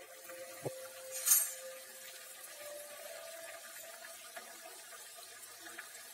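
Hot oil sizzling steadily in a steel kadhai as besan-stuffed puris deep-fry on a low flame. A short, louder burst of noise comes about a second in.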